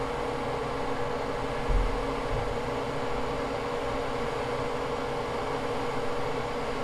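Steady whir of a small electric fan blowing, with a constant mid-pitched hum, and a low thump just under two seconds in.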